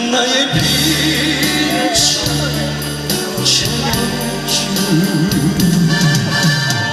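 Live trot ballad: a recorded band backing track through a PA with a man singing into a handheld microphone, cymbal splashes a couple of times in the middle.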